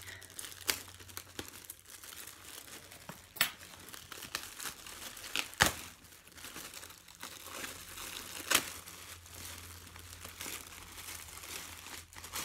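Plastic parcel wrapping and tape crinkling and tearing as they are cut and pulled open with scissors, with a few sharp snaps, the loudest about halfway through and again a few seconds later.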